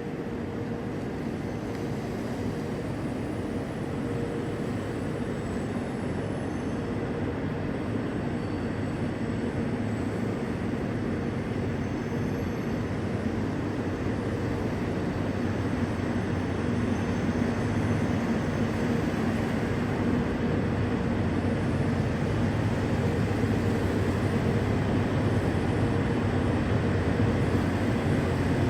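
A diesel train's engine running steadily, slowly growing louder as it approaches.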